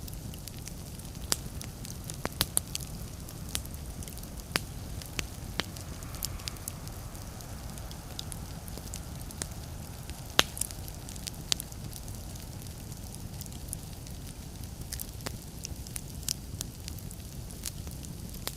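Log fire crackling in a fireplace: irregular sharp pops and snaps over a steady low rumble of the flames, the loudest pop about ten seconds in.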